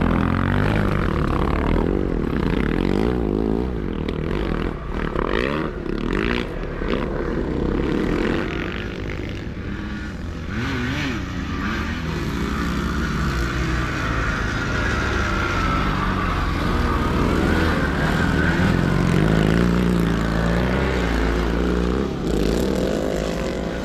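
Several motocross motorcycle engines racing, their pitch rising and falling over and over as the riders open and close the throttle.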